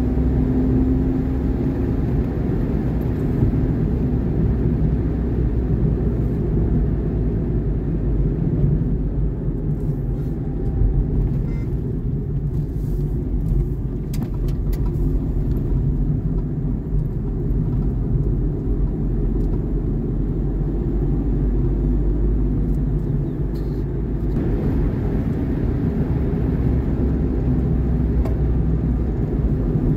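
Steady low rumble of a vehicle driving along a road: engine and tyre noise.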